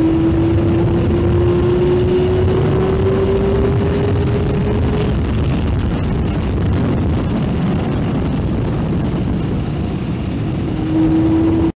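2000 Yamaha Fazer 600's inline-four engine pulling under way, mixed with heavy wind and road rush. The engine note climbs gradually for about five seconds, then sinks under the wind noise and comes back briefly near the end.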